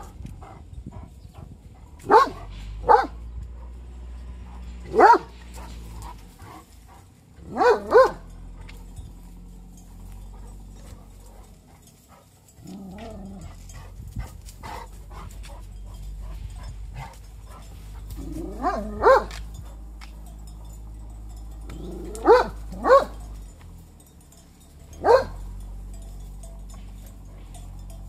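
Large Turkish shepherd dogs barking at sheep beyond the fence: about ten short barks, often in pairs, spaced several seconds apart, with a quiet stretch in the middle.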